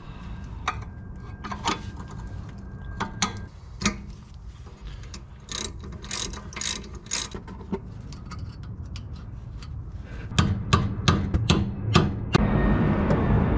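Hand ratchet wrench clicking as the front brake caliper's mounting bolts are run in, with scattered metal clicks and clanks of the caliper being handled against the strut. From about ten seconds in the ratchet clicks come quick and louder, running together near the end.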